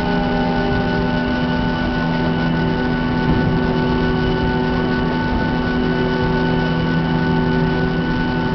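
Airliner's engines running steadily while it taxis, heard from inside the cabin: a constant hum and rush with several held tones.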